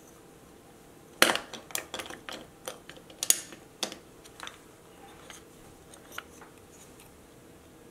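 Plastic LEGO bricks clicking and clattering as they are handled and pressed together on a tabletop: a quick run of sharp clicks, then a few scattered ones.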